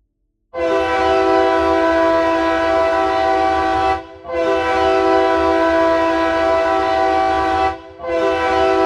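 A horn chord of several steady notes sounding in long blasts: two of about three and a half seconds with short breaks between, and a third starting near the end.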